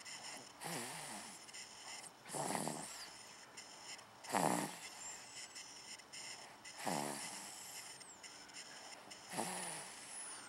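Snoring from someone fast asleep: a regular series of snores, five in all, about one every two seconds.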